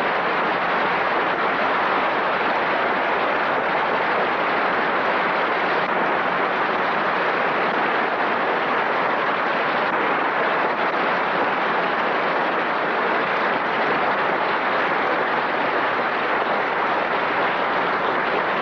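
Large audience applauding, long and unbroken.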